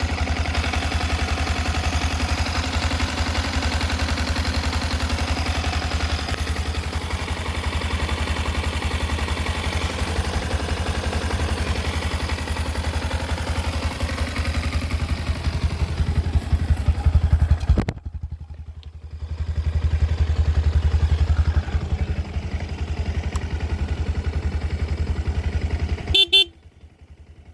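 Yamaha WR 155's single-cylinder four-stroke engine idling steadily, revved up briefly twice past the middle. A short horn beep sounds near the end.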